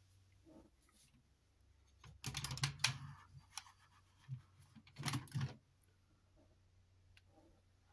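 Plastic clicks and knocks from a hand handling and posing an Iron Kong Zoids plastic model, in two short clusters about two seconds and five seconds in.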